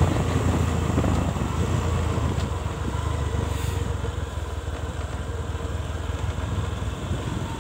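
Motorcycle engine running steadily while the bike is ridden, with road and wind noise, easing off slightly in level through the stretch.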